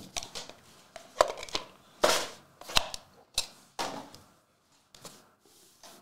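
Empty trading-card hobby box being packed up and closed by hand: a run of light cardboard knocks and taps, with a brief scrape about two seconds in, the sharpest knock a little over a second in.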